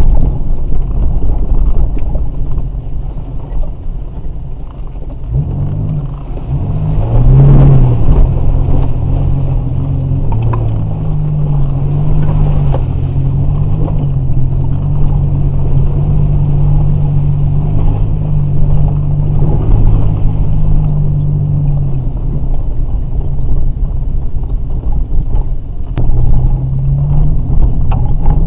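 Car engine and tyre rumble heard from inside the cabin while driving a rough dirt trail. The engine's hum dips, then picks up about six seconds in, and wavers up and down with the throttle for the rest of the time.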